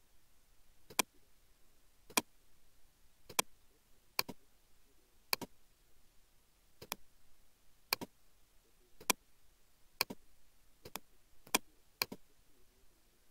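Computer mouse button clicking about a dozen times, single sharp clicks at uneven intervals of roughly half a second to a second and a half, as menu items are picked.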